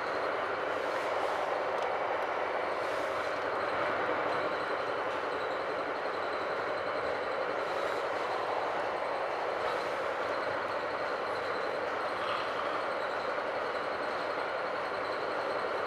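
Metra Rock Island Line commuter train in motion, heard from inside the passenger car: a steady rumbling rush of running noise with a faint high steady tone over it.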